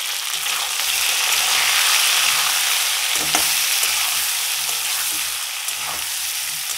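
Ridge gourd pieces sizzling in hot oil in a metal karai while a steel spatula stirs them, with the odd scrape of the spatula against the pan.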